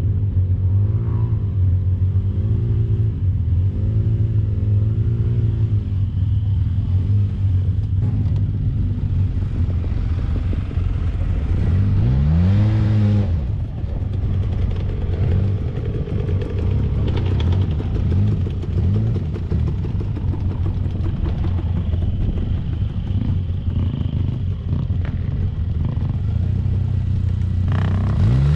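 Side-by-side UTV engine working as it climbs a rutted dirt slope, its pitch wavering up and down. A sharp rev rises and falls about twelve seconds in, and another comes near the end.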